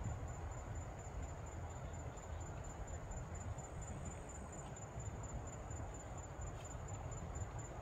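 Insects chirping in a high, even, rapid pulse that keeps going without a break, over a low rumble.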